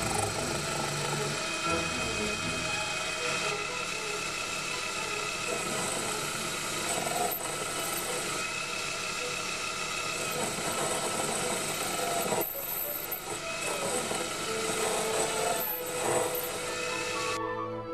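Proxxon PD 250/e mini lathe boring the inside of a steel tube ring with a boring bar: a steady cutting rasp from the spinning work, heard under orchestral music. The cutting noise cuts off suddenly near the end while the music carries on.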